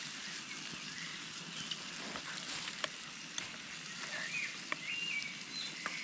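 Chopped onion, tomato and peas sizzling steadily in oil in a small frying pan on a portable gas stove, with a few light clicks of the spatula against the pan.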